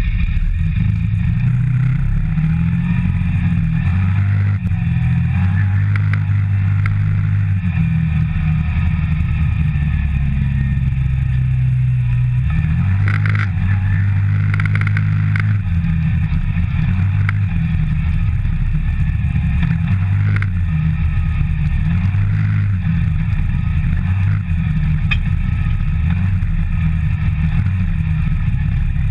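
CFMOTO ZForce 550 side-by-side on the move, its single-cylinder engine running with a low drone that rises and falls as the throttle changes. A few short knocks come through around the middle.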